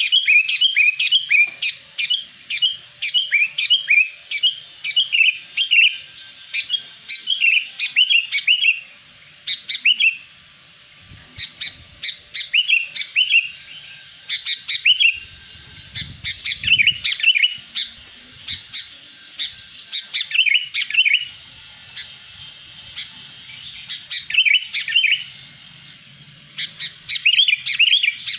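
Sooty-headed bulbul (kutilang) singing: repeated short phrases of quick, falling chirpy notes, given in runs with brief pauses between them.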